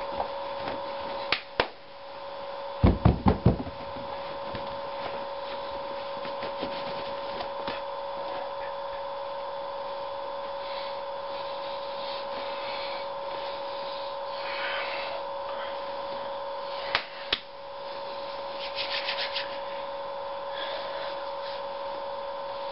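A steady electrical hum under scattered knocks and rubbing noises, with a quick run of low thumps about three seconds in and two sharp clicks near the end.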